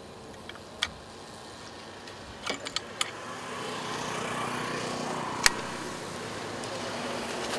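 Sharp metallic clicks from a break-action gun being handled and loaded: one near the start, a quick cluster around two and a half to three seconds in, and the loudest about five and a half seconds in. A passing vehicle's rising hum swells in behind them from about three and a half seconds in.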